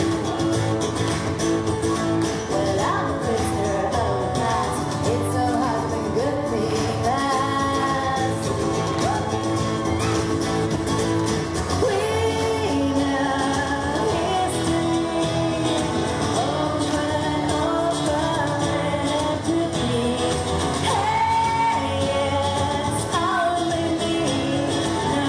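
A woman singing a pop song live, with acoustic accompaniment.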